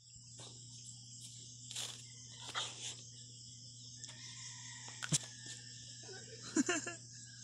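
Insects chirring steadily at a high pitch over a low hum. Two short noisy bursts come near two seconds in, a sharp click about five seconds in, and a brief wavering sound near the end.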